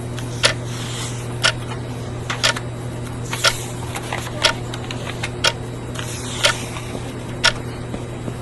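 Clock ticking steadily, one tick a second, over a steady low hum in a silent room.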